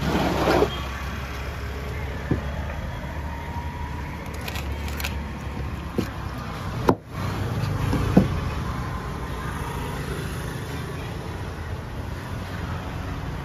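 Steady road traffic noise, with a few scattered sharp knocks and clicks from a knife working through a stingray on a wooden table.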